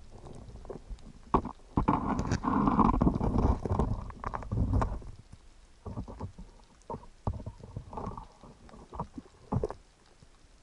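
Muffled underwater rumbling and irregular knocks, as an action camera in a waterproof housing picks up a diver moving and handling gear close by. The sound is densest and loudest from about two to five seconds in, then thins to scattered knocks.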